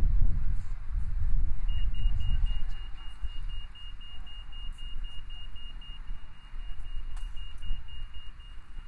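Rapid high electronic beeping, about four short beeps a second, starting about two seconds in, over a low street rumble of traffic and wind that is loudest at the start.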